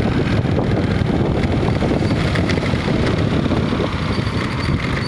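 Road traffic noise: vehicle engines running on a busy city road, with wind buffeting the microphone as a loud, steady rumble.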